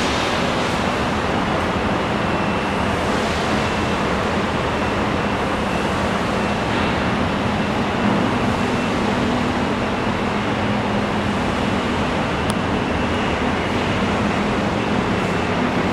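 Steady industrial drone of injection-moulding machinery running in a plant hall: broad even noise with a low hum and a faint high whine.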